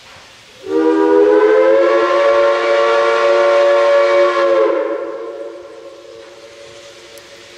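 Steam whistle of Boone & Scenic Valley steam locomotive 8419 blowing one long, loud blast, a chord of several notes sounding together. It starts about half a second in, holds steady for about four seconds, then fades away.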